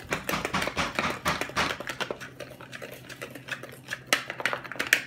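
A utensil stirring in a pot, scraping and clicking rapidly against its sides, with a few louder knocks on the pot near the end.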